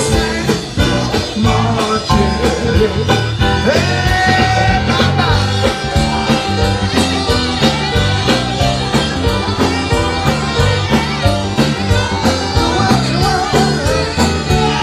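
Loud upbeat music with a steady beat and a singing voice.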